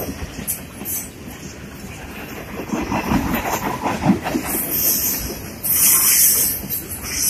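Freight cars of a passing train rolling by close at hand, wheels clattering over the rail joints, growing louder in the second half.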